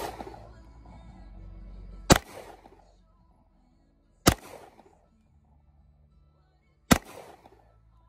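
Three shots from a Glock 48 9mm pistol, about two to two and a half seconds apart, each followed by a brief echo.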